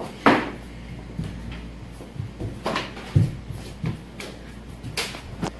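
A few scattered knocks and thumps of a scuffle on a wooden floor, the sharpest about a quarter-second in and a dull heavy thump a little past three seconds in.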